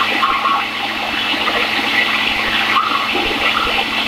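Single-serve blender running on its ultra-blend setting, motor humming steadily as it churns a milk, banana and ice cream smoothie.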